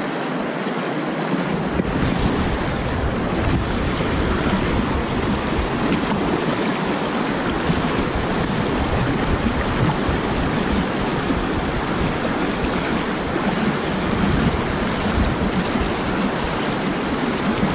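Water rushing steadily over a concrete spillway and churning through the pool below it, with wind buffeting the microphone from about two seconds in.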